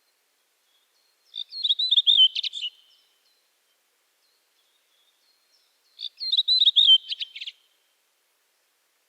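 Redwing singing two separate song phrases about four seconds apart. Each phrase is a quick run of warbled notes that ends in a rapid twittering chatter.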